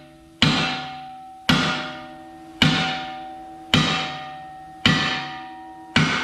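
Hammer blows on metal parts of a crusher jaw: six strikes at a steady pace of about one a second, each leaving a ringing tone that dies away before the next.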